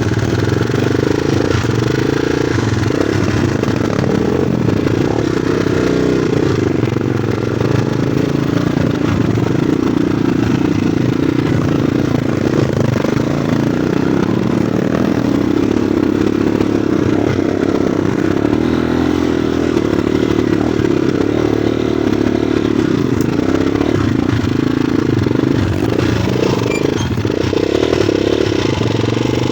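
Motorcycle engine running steadily while riding uphill, holding a fairly even pitch throughout.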